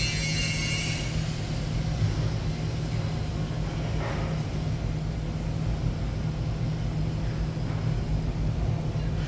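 Steady low electrical hum over a constant rumbling noise from running shop machinery, with the welding arc not yet struck.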